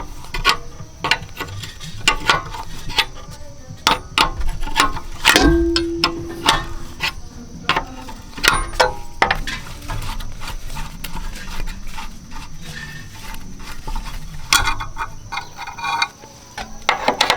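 Hand tools on metal parts: irregular clicks, clinks and knocks. One strike about five seconds in leaves a short ringing tone.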